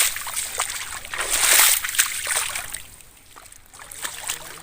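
Water splashing and sloshing in shallow water, in two surges: one right at the start and a longer one about a second in. After that come fainter scattered splashes and drips.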